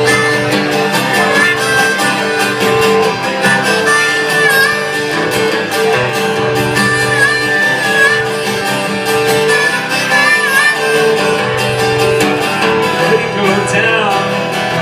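Live band playing an instrumental break with no singing: guitar accompaniment under a lead melody line with bending notes.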